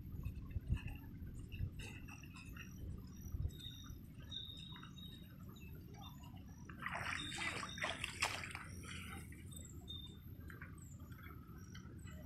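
Muddy water sloshing and dripping, with a burst of splashing about seven seconds in, over a low steady rumble and a few short high chirps.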